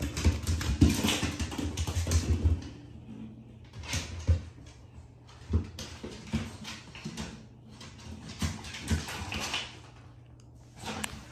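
An American bully dog playing with a small plastic ball on a tile floor: irregular knocks and scuffles of the ball and paws with the dog's snuffling, busiest in the first couple of seconds, then in scattered bursts.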